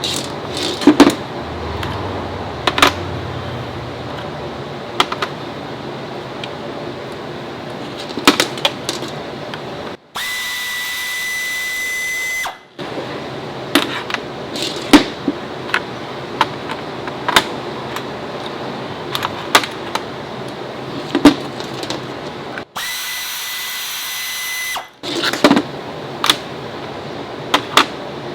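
Mechanic's tool work: frequent sharp metallic clicks and knocks of hand tools over a steady background hum. Twice a power tool runs for a couple of seconds with a steady high whine.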